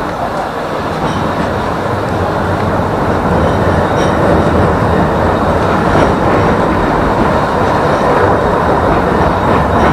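Tram running along its rails: a steady rolling and running noise that grows gradually louder, with a few faint clicks.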